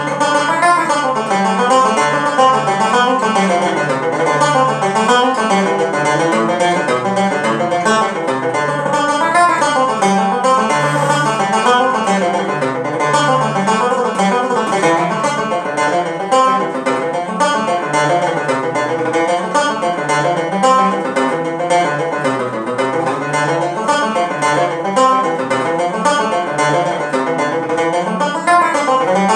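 Solo resonator banjo picked with a plectrum, playing a fast, unbroken run of single notes in an Irish traditional dance tune.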